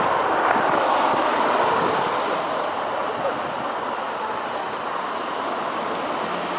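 Steady rushing noise of city street traffic, swelling a little in the first two seconds as a vehicle passes and then easing back.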